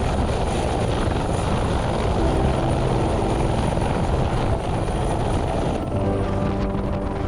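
Helicopter running loud and steady, a dense rotor and engine noise; about six seconds in the higher hiss drops away and a few steady tones stand out.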